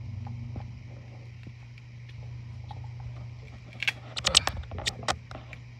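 Clicks and taps of a Samsung washer's plastic drain filter being handled over a stainless steel sink while hair and lint are picked off it, in a quick cluster about four seconds in, over a steady low hum.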